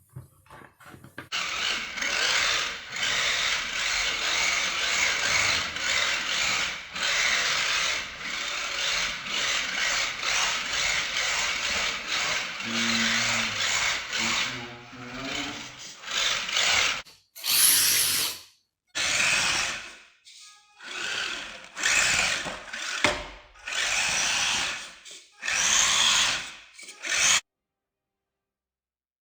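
Small electric motor of a Wltoys K989 mini RC car whirring as the car drives, steady for about fifteen seconds. It then comes in several short stretches that start and stop abruptly.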